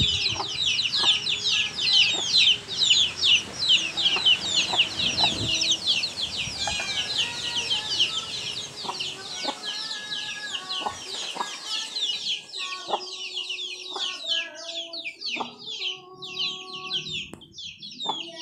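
A brood of chicks peeping without pause in rapid, high, downward-slurred cheeps, with a black hen clucking in short, lower notes among them.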